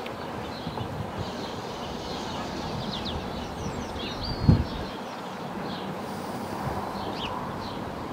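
Birds chirping and calling outdoors over a steady background noise, with one brief low thump about four and a half seconds in.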